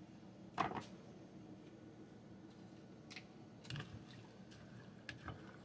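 A few faint knocks and clicks of a spoon against the pot of a microwave rice cooker as rice and water are stirred, the loudest knock about half a second in.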